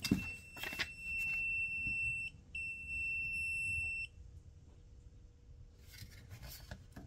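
Leolov MT2202 touchscreen multimeter's buzzer sounding a steady high-pitched beep twice: about two seconds, a brief break, then about a second and a half. The meter is beeping because the thermocouple connected to it registers as a short.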